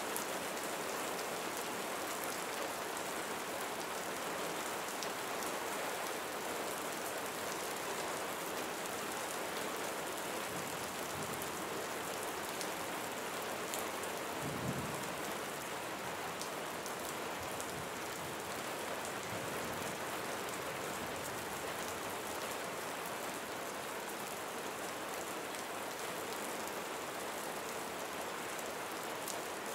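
Steady rain falling, with scattered individual drops ticking close by and a brief low thump about halfway through.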